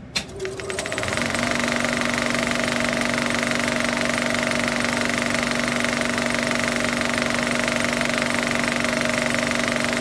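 Film projector running: a steady, fast mechanical rattle with a low hum, starting with a few clicks and building up over the first second.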